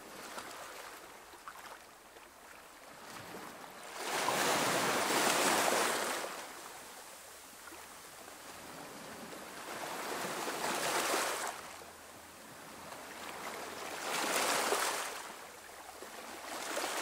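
Sea waves washing onto a shore: a soft hiss of surf that swells into a wave every four to six seconds, four times, the first the loudest.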